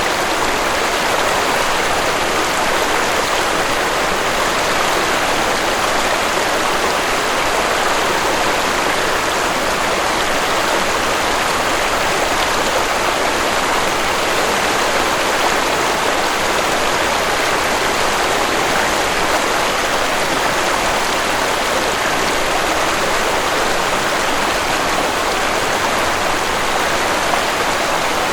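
Waterfall rushing: a steady, even wash of falling and splashing water that does not change.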